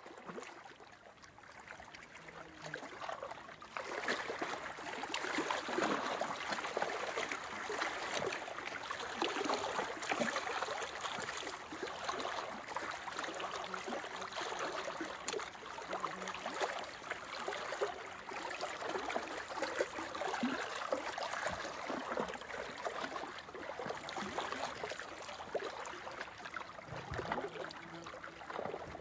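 Ocean waves washing on the shore: a continuous, uneven rush of water that grows louder about four seconds in.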